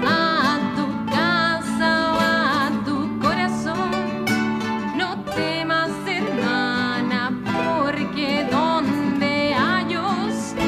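Folk band playing a song: a voice singing a melody with vibrato over plucked guitar and a steady bass line.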